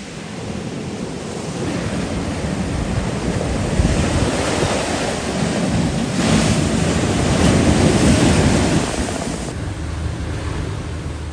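Sea surf surging and washing onto the shore, building over several seconds and easing off near the end, with wind buffeting the microphone.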